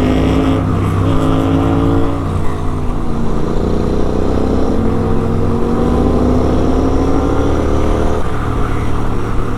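Superbike engine with a full-system exhaust accelerating under load. Its pitch climbs, drops sharply at a gear change about two seconds in, climbs steadily again, and drops again about eight seconds in.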